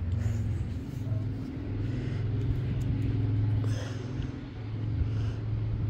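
Sawmill engine running steadily with a low, even drone.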